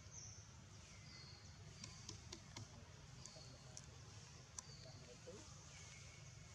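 Near silence: faint outdoor ambience with short, high chirps about once a second and a few light ticks.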